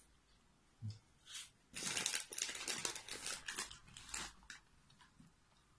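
Crinkling and rustling of packaging being handled, in a run of noisy bursts starting about two seconds in and dying away near the end.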